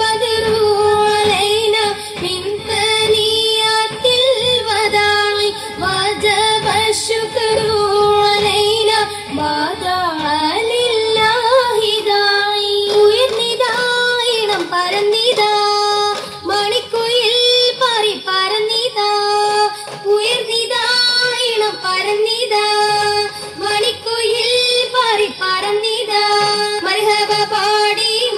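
Singing: a single high voice holds long notes and slides between pitches in an ornamented melody, with the pitch moving most about a third of the way through.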